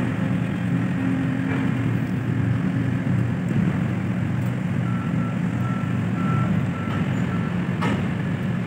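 Container crane at work lifting a container out of a ship's hold: a steady low machinery hum, with a run of short, evenly spaced warning beeps about halfway through and a single sharp knock near the end.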